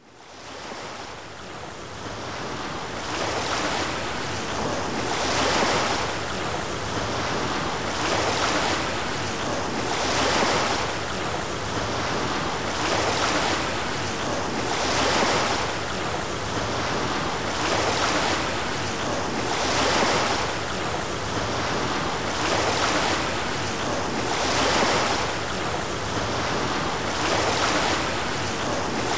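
Ocean surf, waves washing in and receding in even swells about every two and a half seconds, fading up over the first few seconds.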